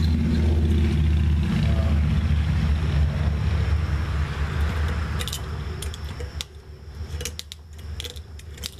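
A motor vehicle's engine rumbles steadily, then fades away over the second half. Several sharp metallic clicks and scrapes of a hand tool on metal follow.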